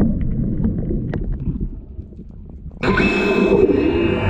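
Underwater sound: a low watery rumble with small clicks, then nearly three seconds in an electric underwater hull scrubber starts up suddenly with a steady motor whine of several tones, its spinning disc scrubbing the hull.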